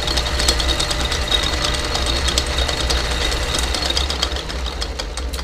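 Lathe running, a steady motor hum under a dense, rapid rattling chatter, easing a little near the end.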